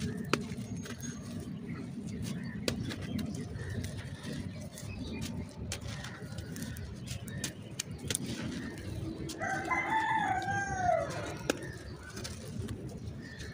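Hands crushing and crumbling dry clay lumps and dusty dirt, a gritty crunching with many small cracks and trickles. About two-thirds of the way through, a bird gives one long call that rises and then falls.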